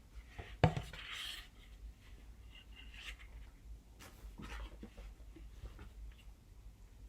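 Paper and packaging from a CD album being handled: a sharp click or knock about half a second in, then light rustling and scraping.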